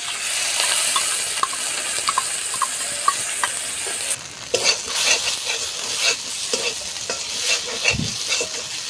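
Whisked sour yogurt hitting hot mustard oil and spice paste in a metal kadai, sizzling. From about four seconds in, a spatula scrapes and stirs against the pan about twice a second while the frying goes on.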